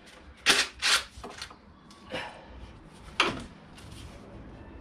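Gloved hands working over a car engine, disconnecting and handling fittings: a run of sharp clicks and rattles. The loudest come about half a second and a second in, and another comes about three seconds in.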